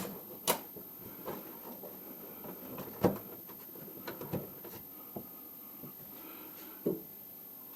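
A car's center console being handled and test-fitted over the shifter and e-brake: a handful of light knocks and clicks, the sharpest about three seconds in.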